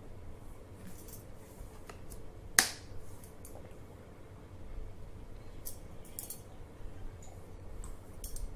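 A single sharp click about two and a half seconds in, with a few faint small clicks and ticks around it.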